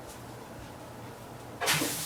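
A brief, loud scraping rustle of pet-fountain parts being handled, about one and a half seconds in, over a faint steady hum.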